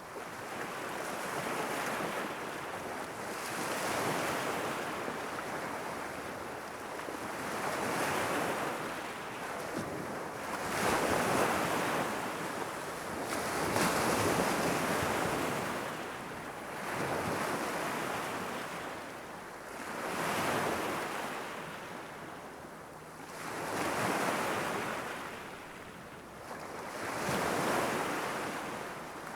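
Sea waves lapping and washing against the shore, the noise swelling and falling back in surges every three to four seconds.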